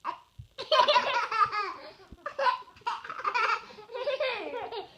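Young children laughing: repeated high-pitched bursts of laughter with short breaks.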